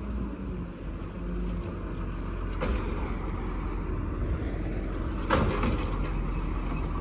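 Garbage truck's diesel engine running with a hydraulic whine as its automated side arm lifts and dumps a cart. There is a sharp knock a little under three seconds in and a louder clatter a little past five seconds in, from the cart banging against the truck.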